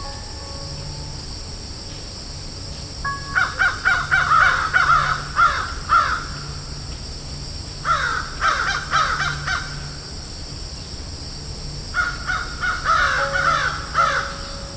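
Crows cawing in three bouts of several quick, harsh caws each, over a steady high-pitched hiss.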